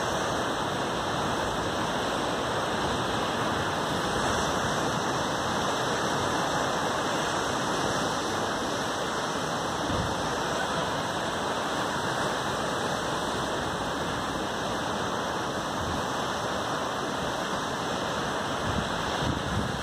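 Steady, unbroken rush of sea surf breaking on the rocks below the cliffs.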